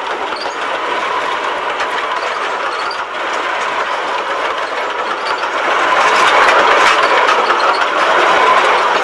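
Train rolling along the track: a steady clattering rush with a faint steady whine, swelling a little past the middle.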